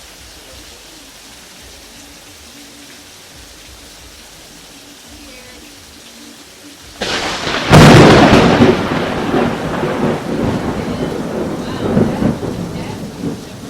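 Steady rain, then about seven seconds in a very close lightning strike: a sudden, very loud thunderclap that peaks within a second and rumbles away over the following several seconds, with the rain continuing underneath.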